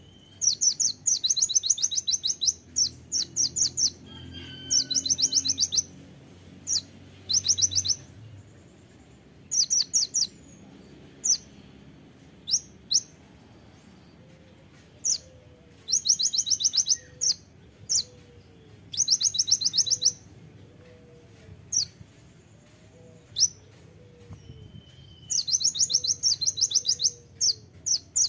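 Male kolibri ninja sunbird singing: rapid, sharp, high-pitched trills about a second long, separated by single sharp chips, repeated throughout.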